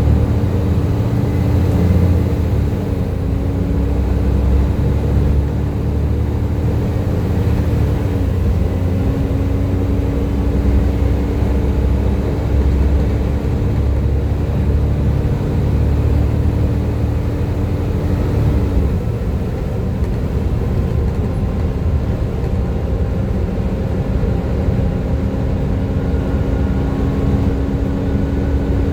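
Volvo B7TL double-decker bus's engine working hard with a steady whine over a heavy low rumble, the vacuum-cleaner-like 'hoover' sound of this chassis. The whine steps up slightly a few seconds in and again around eight seconds; about two-thirds through, the rumble eases and the whine drops in pitch.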